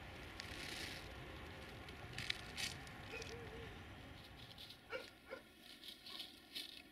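Dog whining faintly: a short wavering whine about halfway through, then two brief yelps a little later, with scattered faint ticks and rustling.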